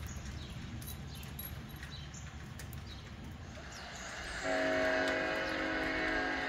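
A train horn sounds about four seconds in, holding one steady chord of several notes, over a low rumble.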